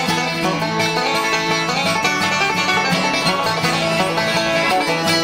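Background music: bluegrass with banjo and guitar, plucked strings playing many quick notes.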